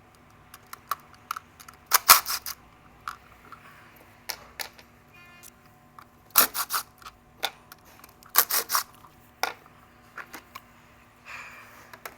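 Sharp metallic clicks and clanks of hand tools working on an engine, coming in a few short clusters with single clicks between them.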